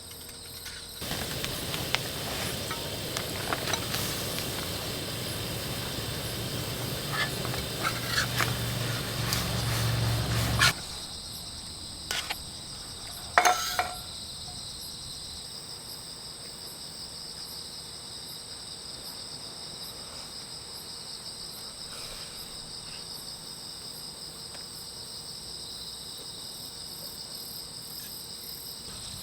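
Crickets chirring steadily in high continuous bands. For the first ten seconds a louder rushing noise with a low rumble and scattered clicks sits over them and cuts off suddenly, followed by a couple of sharp clicks.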